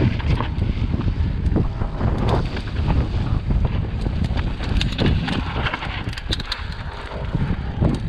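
Wind buffeting the microphone of a mountain bike descending a rocky dirt trail, with the frequent clicks, knocks and rattles of the bike and its tyres going over rocks and loose dirt.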